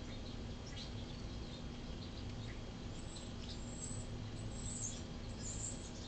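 Faint, short, high chirps of small birds, scattered through and bunching a little after halfway, over a steady low hum.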